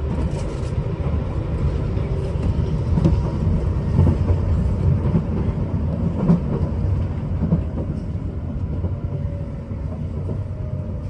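Inside the carriage of a Nankai limited express Southern train running along the line: a steady low rumble from the wheels and running gear, with an occasional clack from the rails and a faint whine in the later seconds.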